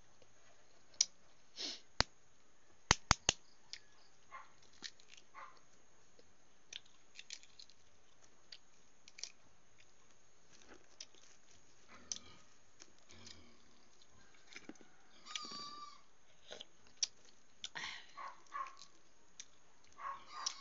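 Scattered sharp clicks and crackles of a balut's eggshell being cracked and picked off by hand, the loudest a quick run of three clicks about three seconds in, mixed with close chewing and mouth sounds.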